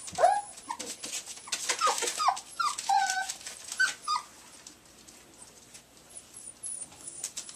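Young puppies whimpering in a string of short, high cries that bend in pitch, over the first four seconds or so, then fading to a few faint peeps.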